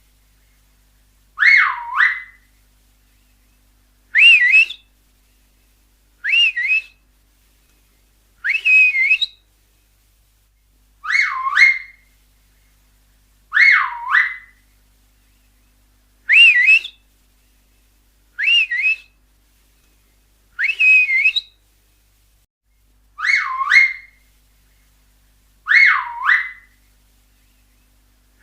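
Finger whistle blown over and over: about eleven short, shrill whistles, each a quick swoop up and down in pitch lasting about a second, one every two and a half seconds, with silence between.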